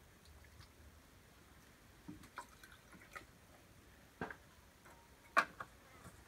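Faint, scattered knocks and clinks of a plastic jug and small cups being handled on a small table, the sharpest about five and a half seconds in.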